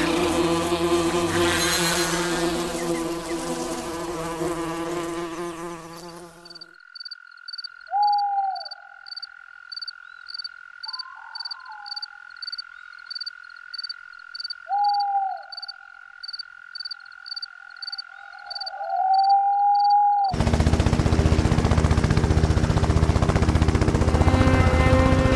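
Cartoon insect sound effects in three parts. First a swarm of flying insects buzzing. Then a night chorus: a steady high drone, a cricket-like chirp about twice a second, and three frog-like croaking calls, the last one longer. About 20 seconds in, a loud, pulsing, helicopter-like whir of dragonfly wings takes over.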